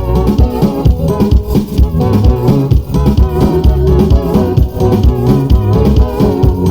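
Live band music with guitar, bass guitar and drums, played loud through JBL SRX PA speakers and subwoofers at a sound check, with a heavy, steadily pulsing bass.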